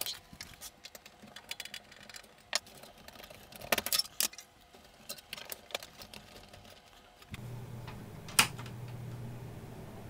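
Light metallic clicks and clatters of expansion cards and bracket screws being handled inside an open 486 tower case. About seven seconds in, a steady low hum starts suddenly and keeps on, with one sharp click a second later.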